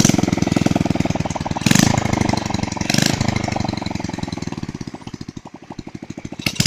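Honda Supra X single-cylinder 100 cc motorcycle engine with no exhaust pipe or muffler, running with rapid, harsh firing pulses straight from the exhaust port. It has just been kick-started and is blipped up three times in short bursts, settling lower between them.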